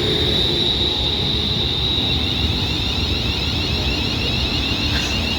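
Steady rumble of a train, with a high whine throughout and a second, wavering whine joining about two seconds in.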